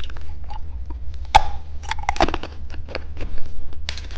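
Candy packaging being handled: a string of small plastic clicks and crinkles, with one sharper click about a second and a half in.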